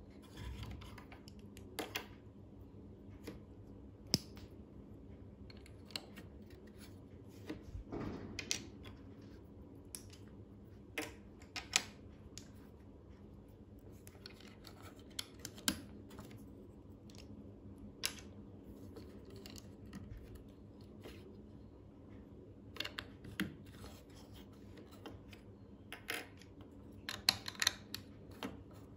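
Plastic LEGO bricks handled and pressed together on a table: scattered sharp clicks and taps, with a quick run of clicks near the end.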